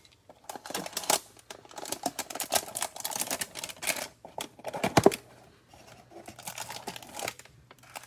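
A cardboard hanger box of trading cards being opened by hand: irregular tearing, crinkling and rustling of packaging with small clicks, and a louder rip about five seconds in.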